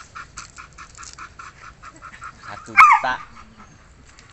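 A dog barks: one loud, high, yelping bark about three seconds in. Before it come faint, quick, repeated yaps.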